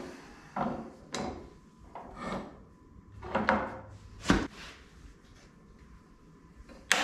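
Red oak molding boards being shifted and set down against pipe clamps: a series of separate wooden knocks and scrapes, the sharpest about four seconds in and another just before the end.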